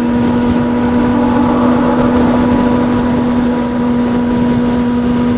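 A vehicle engine running at a steady speed, holding one constant pitch, over a steady rush of road and wind noise.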